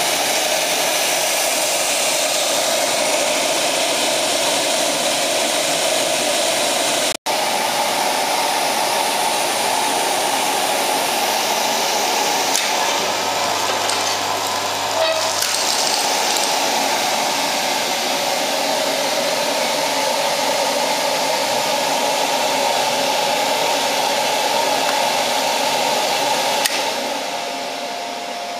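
Pellet burner running, its combustion-air fan blowing with a steady rushing noise. Near the end the sound drops to a quieter steady hum.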